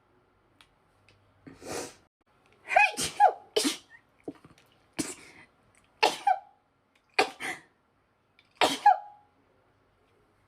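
A woman sneezing over and over in a sneezing fit: a string of about seven sudden, loud sneezes, roughly one a second, with short pauses between them.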